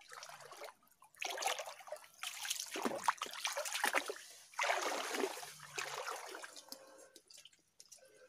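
Water sloshing and splashing as a person wades through a shallow muddy stream, in three long surges, followed by a few small drips and splashes near the end.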